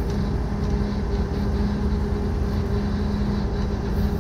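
Strong wind buffeting the microphone over the steady drone of a heavy tow truck's diesel engine, a constant hum.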